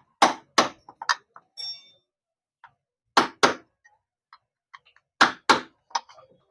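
Hammer striking a punch to drive cut rivets out of a motorcycle clutch housing: sharp metallic taps, mostly in pairs about a third of a second apart, in three bursts with pauses between and a few lighter ticks.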